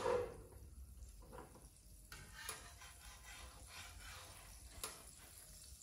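Faint clicks and light scraping of a slotted metal spatula being worked under a raw beef patty on a cutting board; the sharpest click comes about five seconds in.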